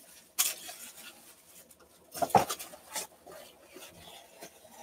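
A few short rustles and knocks of things being handled, likely card packs and sleeves, about half a second, two seconds and three seconds in.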